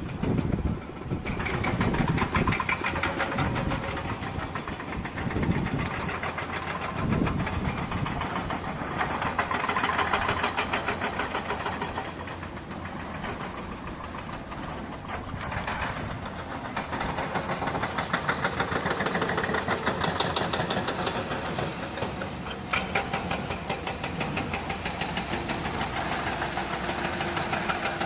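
Diesel engine of an Isuzu Giga dump truck running with a rapid, even knocking pulse, growing louder and softer by turns.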